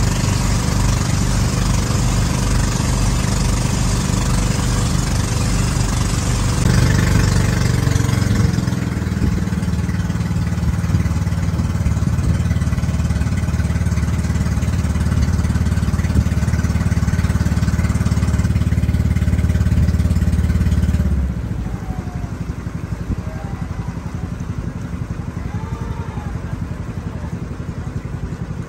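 An engine running steadily with a low hum. It grows slightly heavier about seven seconds in, then eases off to a quieter, thinner running about 21 seconds in.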